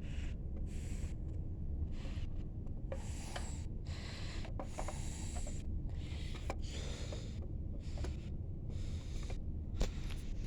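Handling noise: rubbing and scraping sounds that come and go, with a few light clicks, the clearest near the end, over a steady low rumble.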